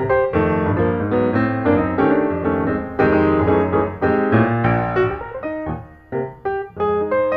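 Background piano music, a steady run of notes and chords.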